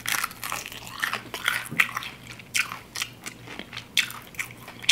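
Crispy fried chicken wings being bitten and chewed, a run of irregular crunches of the fried breading.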